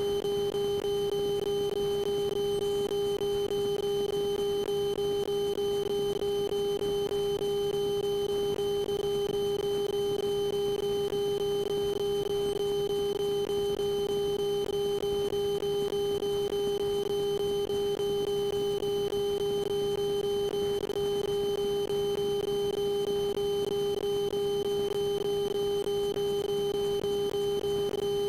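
Light aircraft cockpit drone on final approach: a steady hum with a strong constant tone over it that does not change in pitch or level.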